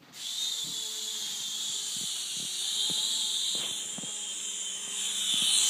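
Miniature RC helicopter's electric rotor motor running in flight: a steady high-pitched whine that starts suddenly and rises a little in pitch near the end.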